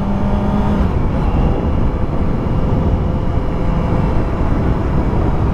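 Kawasaki ZX-4RR's inline-four engine running at a steady speed while being ridden, under a dense rush of wind and road noise. A steady engine tone holds for about the first second, then drops out, leaving mainly the rushing noise.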